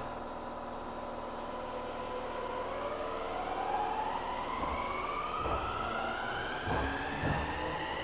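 Enshu Railway electric train pulling away from the platform: its traction motors give a whine of several tones that rises steadily in pitch as the train picks up speed. Low thumps of the wheels come in irregularly from about halfway on.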